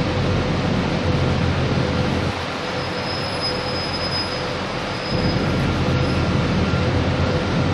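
A 4.8 m roller core veneer dryer running: a steady mechanical rumble with a constant hum over it, and a faint high whine that comes and goes partway through.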